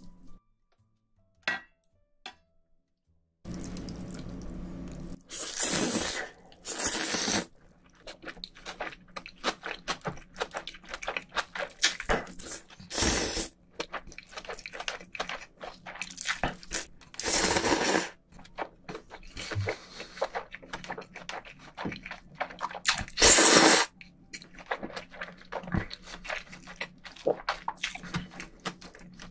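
Close-miked slurping and chewing of spicy mixed cold noodles (bibim naengmyeon): several loud slurps, the loudest about three quarters through, over a steady run of wet chewing clicks. It begins after a few near-silent seconds.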